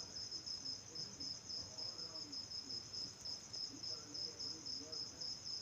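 A cricket chirping, a steady high pulsing trill that goes on without a break.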